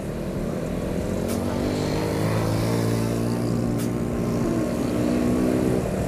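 Vehicle engine running steadily under way, heard from on board, its pitch rising slightly about two seconds in as it picks up.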